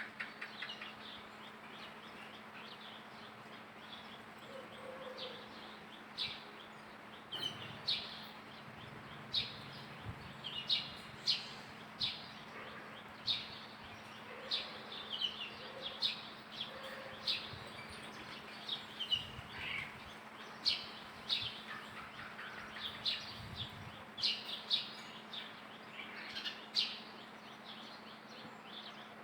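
Short, high-pitched chirping calls, repeated about once a second, some falling slightly in pitch, over a faint steady hum.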